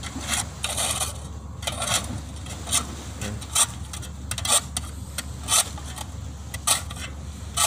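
Shovels scraping mud off a landing craft's steel bow ramp: irregular scrapes about once a second, over a steady low hum.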